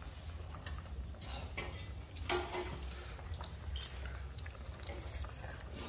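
Scattered light clicks and taps of spoons and chopsticks against bowls and a pot while people eat, over a steady low hum.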